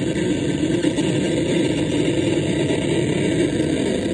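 OM-BOT Noise Catalyst experimental noise synthesizer putting out a dense, steady low drone of rough noise.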